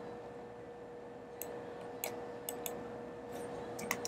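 Several faint, sharp clicks at a computer, scattered irregularly, over quiet room tone with a steady faint hum.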